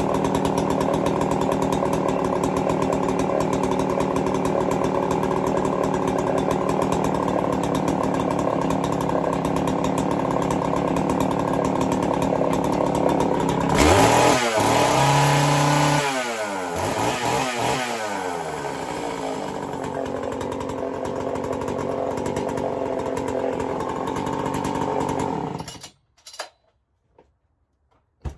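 Homelite 410 two-stroke chainsaw, fitted with an MS660 intake boot, idling steadily, then revved up for about two seconds roughly halfway through before dropping back to idle. Near the end it is switched off and stops suddenly, followed by a few faint clicks.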